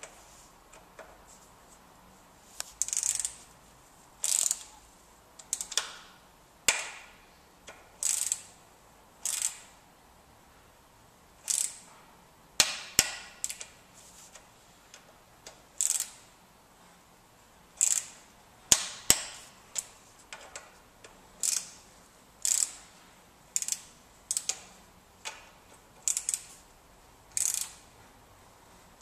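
Ratcheting torque wrench worked in short strokes: about twenty brief bursts of sharp ratchet clicks, roughly one every second or so.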